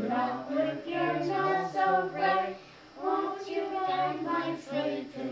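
A group of voices, children's among them, singing a song together in held notes. There are two phrases, with a short break about three seconds in.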